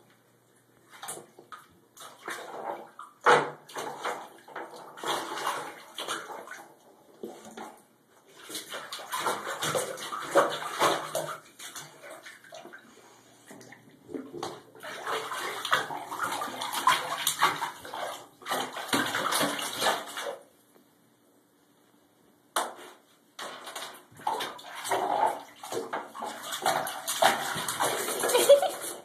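A dog splashing and pawing about in shallow water in a bathtub, in irregular bouts of sloshing and knocks, with a pause of about two seconds past the middle.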